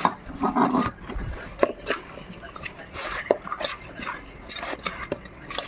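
Bare hand squeezing and mixing raw mutton with chopped onions, tomatoes and spices in an aluminium pot: irregular wet squelches and soft scrapes against the pot.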